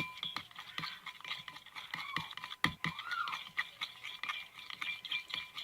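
A utensil stirring glue and warm water in a container, scraping and clicking against its sides in many short taps. A brief squeak about three seconds in.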